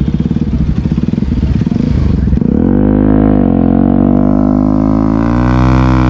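Motorcycle engine running at low revs with a rough, pulsing note, then about two and a half seconds in it revs up into a smooth rising note as the bike accelerates, easing off briefly and climbing again near the end.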